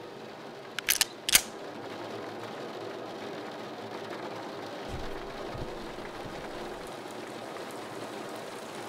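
Steady background hiss of ambience, broken about a second in by three sharp clicks in quick succession, with a faint low rumble passing near the middle.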